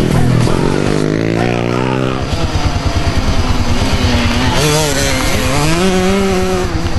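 Small youth dirt bike engines: one bike passes close with its pitch falling over the first couple of seconds, then a bike revs up and down through a turn.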